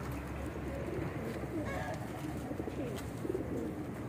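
Domestic flying pigeons cooing, a steady low wavering murmur of overlapping coos.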